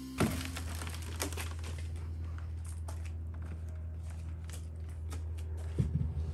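Crinkling and rustling handling noises with scattered clicks over a steady low hum, and a thump near the end.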